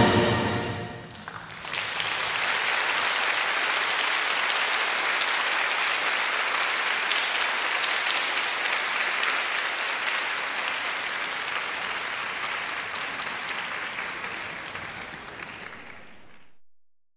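A wind band's final chord dies away about a second in, then a hall audience applauds steadily. The applause slowly fades and cuts off near the end.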